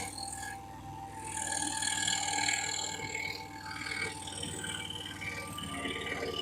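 Excalibur EX21 scroll saw running steadily, its blade stroking rapidly up and down as it cuts through a piece of flooring board, with music playing underneath.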